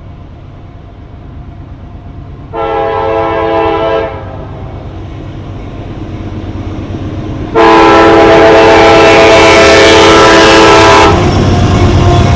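Locomotive horn sounding two blasts as a train passes: a shorter one about two and a half seconds in and a long, loud one from about seven and a half to eleven seconds. The train's rumble gets louder toward the end.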